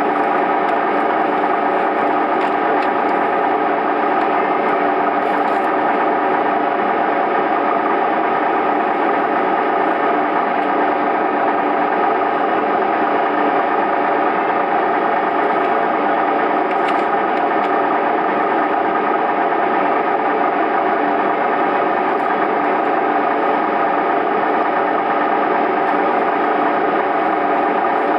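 Diesel railcar engine idling steadily while the train stands at a station, heard from inside the carriage as an even hum with several steady tones.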